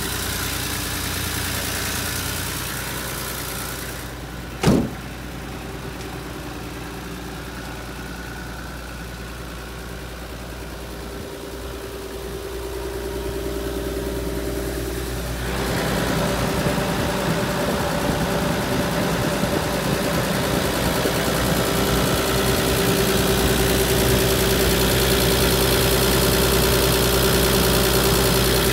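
Nissan Civilian bus's TD42 4.2-litre straight-six diesel idling steadily, with one sharp knock about five seconds in. The engine sounds louder and fuller from about halfway through.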